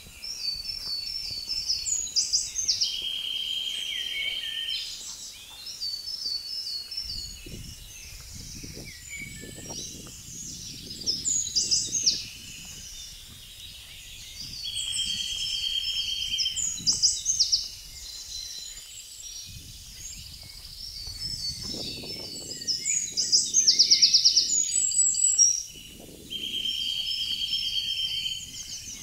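Songbirds singing: repeated fast, trilling song phrases a few seconds long, several of them ending in a steady trill.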